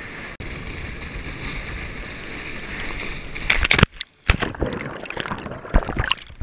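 Steady rush of water and spray while water skiing. A little over three seconds in come loud splashes, then the sound cuts off suddenly and gives way to scattered splashes and knocks.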